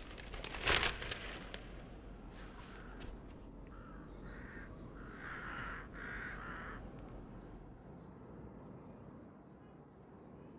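Faint background bird calls: a run of about four separate calls in the middle, with thin chirps before and after. A brief rustle of paper comes about a second in.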